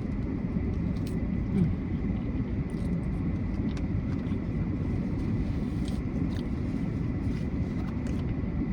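Steady low rumble of a car. Faint scattered clicks sound over it.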